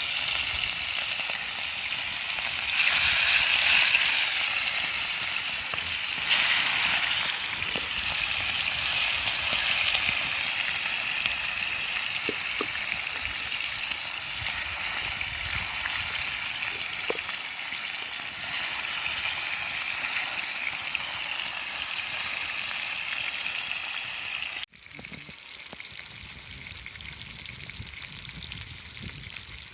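Veal entrecôte steaks sizzling as they fry: a steady, dense hiss. About 25 seconds in it cuts abruptly to a quieter sizzle.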